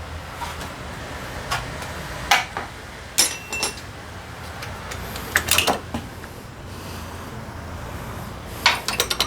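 Small metal parts and tools clinking and tapping against each other in irregular bursts, over a steady low hum.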